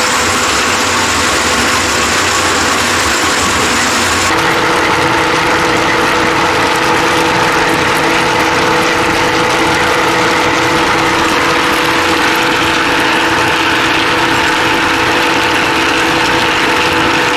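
Rotary brass tumbler running steadily, its motor humming as the drums turn with brass cases in soapy water. The tone of the hum shifts about four seconds in.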